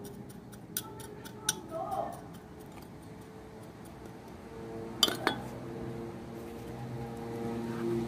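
A few sharp clinks of hard objects knocking together, the loudest a pair about five seconds in.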